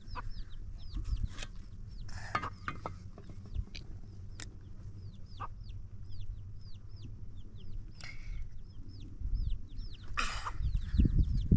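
Chickens, with chicks peeping: many short, high chirps that fall in pitch, a few each second, over a steady low rumble. A few brief rustles or knocks come in along the way.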